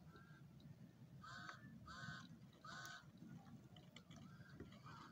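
A bird calling in the background: a short call repeated about every three-quarters of a second, with three louder calls in a row about a second in.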